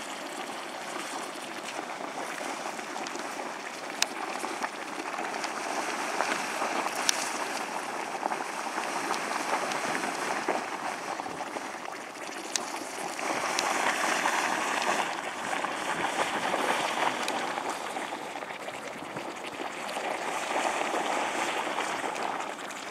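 Spasmodic Geyser splashing and churning in its crater: a steady rushing, bubbling water noise that swells louder about halfway through and again near the end.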